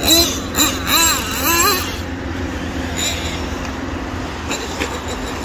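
Nitro engine of a Kyosho MP9 1/8-scale RC buggy running on a dirt track: a steady drone, with pitch swinging up and down in the first two seconds.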